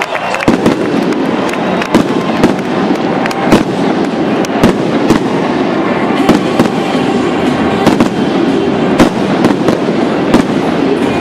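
Aerial fireworks display: shells launching and bursting in a steady run of sharp bangs, about one or two a second at uneven spacing, with a continuous background din underneath.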